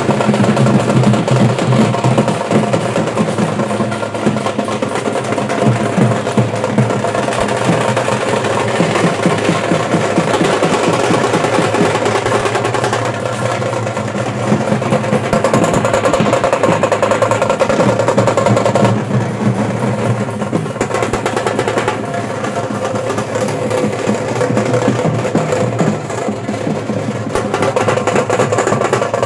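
Fast, unbroken drumming from a teenmaar procession band, the strokes dense and rolling, with other instruments sounding over the drums.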